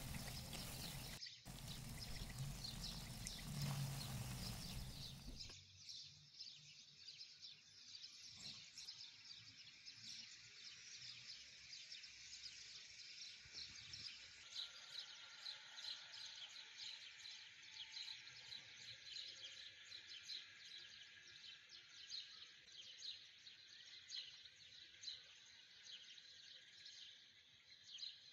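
For the first five seconds or so, noisy handling of creamy fettuccine being tossed and lifted in a frying pan. From there on, a faint outdoor backdrop with many quick, high bird chirps.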